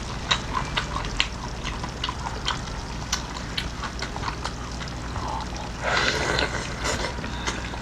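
Close-up chewing and mouth noises of a person eating seafood: many wet smacks and crisp clicks, with a louder, denser stretch of chewing or slurping about six seconds in.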